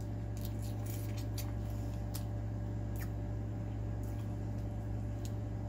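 A person eating shrimp close to the microphone: scattered small wet clicks and smacks of chewing and sucking, over a steady low hum.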